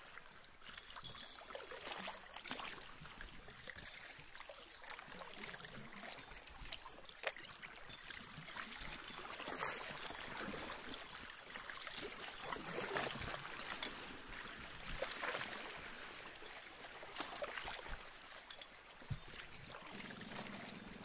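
Water lapping and splashing against the hull of a small boat moving slowly over calm, shallow sea, swelling and easing every few seconds.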